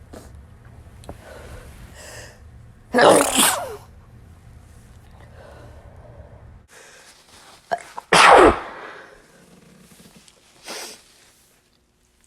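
A person sneezing into a tissue, twice: one sneeze about three seconds in and a second about eight seconds in, with quiet breathing between. These are sneezes set off by dust.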